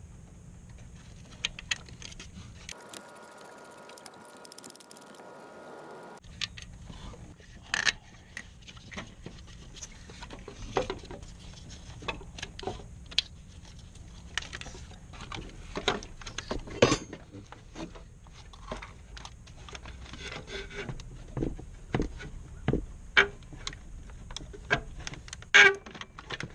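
Hand tools and metal parts clinking and knocking during alternator removal or fitting: scattered sharp clicks and clanks over a low background hum.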